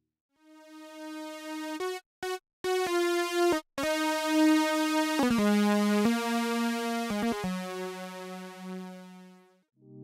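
u-he Zebra software synthesizer playing a big sawtooth lead patch: a melody of single, bright, overtone-rich notes that fades in over the first second, with a few brief gaps between notes, and moves lower about halfway through.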